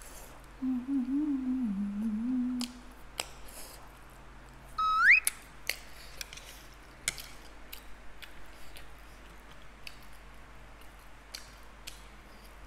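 A woman eating spicy noodles and flatbread: a closed-mouth "mmm" hum that wavers in pitch for about two seconds, then a short squeak rising in pitch about five seconds in, the loudest sound. Sharp mouth clicks of chewing are scattered throughout.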